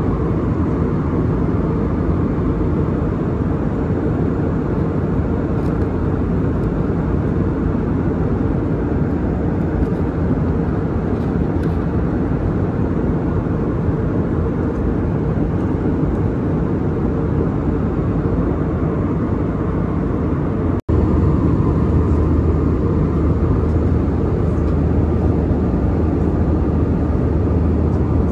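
Steady cabin noise of an Airbus A320-200 airliner in flight: a constant low rush of engines and airflow heard from a passenger seat. It breaks off for an instant about two-thirds of the way through, and after that a low hum is stronger.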